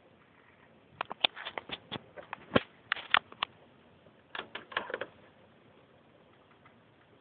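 Quick, irregular sharp clicks and taps in two bursts, the first lasting a couple of seconds and the second shorter.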